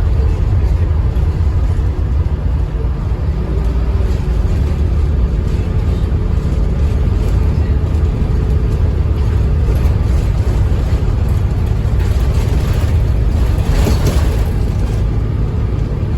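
Diesel bus engine with its ZF automatic gearbox, heard from on board, running steadily with a deep low rumble, with a brief burst of noise near the end.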